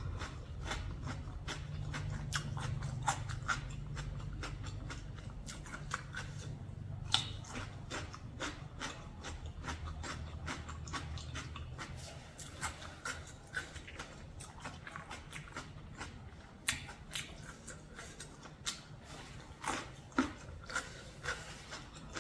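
Someone chewing and crunching food with the mouth close to the microphone, with many small clicks and smacks throughout.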